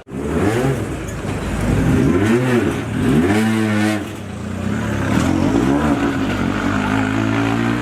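Peugeot 208 R5 T16's turbocharged 1.6-litre four-cylinder engine revved in several rises and falls, then settling to a steady idle near the end.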